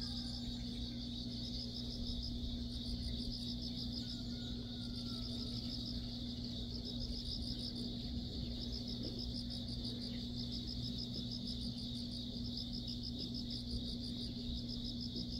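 Insects, crickets or the like, trilling steadily, with a second insect's short pulsed trills repeating about once a second, over a steady low hum.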